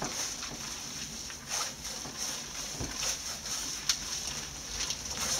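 Hands lathering shampoo into a soaked cat's fur: wet squishing and rubbing with a few sharp clicks, loudest just before the 4-second mark, over a steady high hiss.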